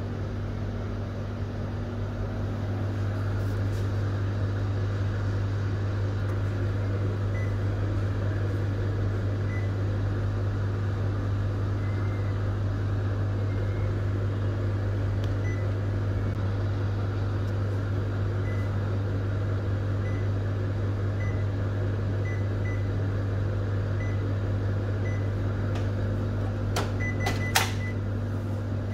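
Kyocera TASKalfa 4053ci colour copier-printer running with a steady low hum. Near the end come a few sharp clicks as its front toner door is opened.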